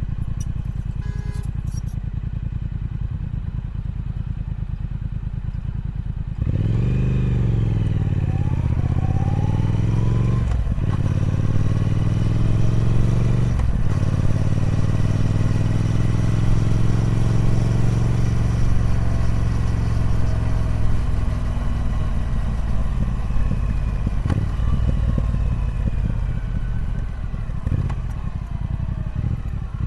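Triumph Speed Twin 1200's parallel-twin engine on its stock exhaust, running at low revs, then accelerating hard about six seconds in with rising revs and two quick upshifts. It then holds steady revs and gradually eases off toward the end.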